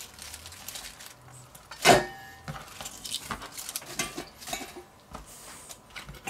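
Kitchen knife and cut pointed cabbage being handled on a wooden cutting board. One sharp metallic clink with a short ring about two seconds in, then soft rustling and light taps.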